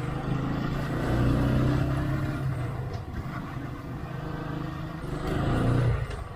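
Motorcycle engine running while riding, with road and wind noise. The engine note swells about a second in and again just before the end, then drops off suddenly.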